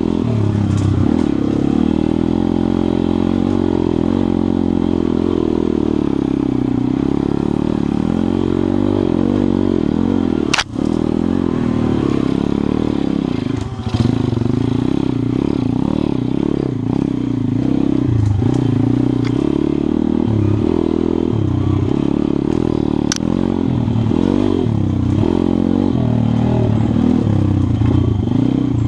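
Single-cylinder engine of an MRF 140 RC pit bike running on a dirt trail, its pitch rising and falling as the throttle opens and closes. Two sharp knocks come through, about ten and twenty-three seconds in.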